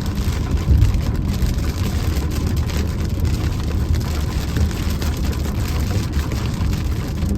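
Steady low rumble of a car driving slowly through strong wind, heard from inside the cabin.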